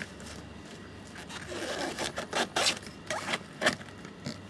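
Plastic control panel scraping and clicking as it is pushed back into its opening in a gaming chair's leather-covered side, with a run of short scrapes and knocks from about halfway through.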